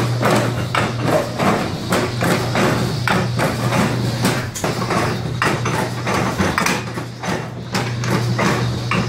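Coptic holy-bread (qurban) stamping machine running with a steady low electric hum, its press mechanism clacking and knocking irregularly as dough balls are stamped.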